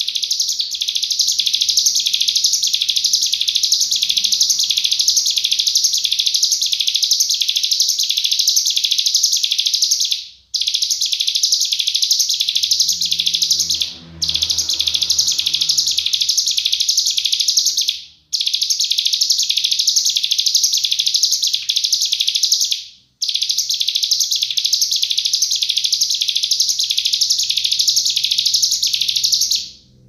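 Ciblek gunung ('cigun'), a prinia, singing its dense, rapid 'nembak' song: long runs of high notes repeated quickly, broken by four short pauses.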